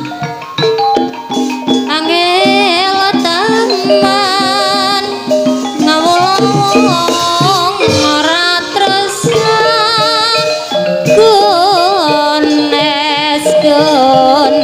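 Live jaranan-dangdut ebeg music: a singer with strong vibrato over an ensemble of held melodic notes and percussion, playing without a break.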